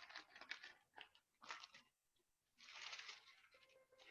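Faint paper rustling in several short bursts, the longest about two and a half seconds in: the rustle of pages being handled and turned while searching for a place in the text.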